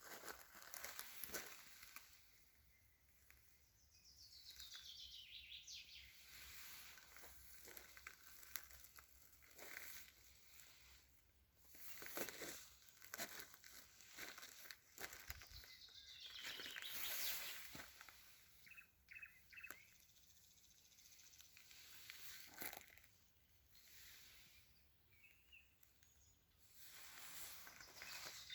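Faint songbird singing: a fast trill that falls in pitch, repeated three times about twelve seconds apart, with a few short chirps in between. Scattered soft crackles run through it.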